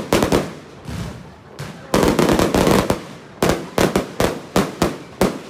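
Fireworks display: aerial shells bursting with dense crackling, then a quick string of separate sharp bangs in the last two seconds.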